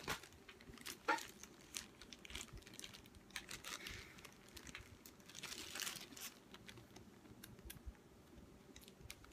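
Faint crinkling and rustling of a small clear plastic parts bag being handled and turned over in the hands, with a few light ticks.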